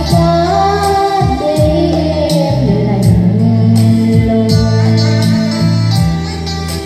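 Music playing: a song with a gliding melodic lead line over steady bass notes and a plucked guitar accompaniment.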